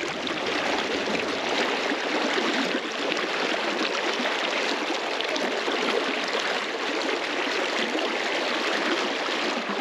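Fast river current rushing and churning around a wading angler's legs: a steady, close rush of moving water.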